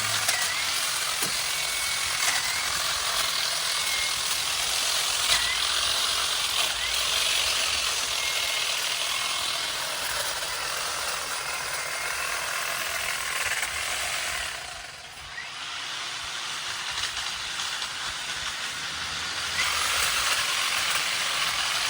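Ego battery pole hedge trimmer running steadily and cutting through thick branches. It eases off briefly about two-thirds of the way through, then picks up again.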